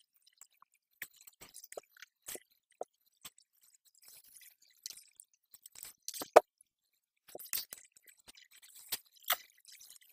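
Irregular short clicks, taps and rustles, with one sharp, much louder knock about six and a half seconds in.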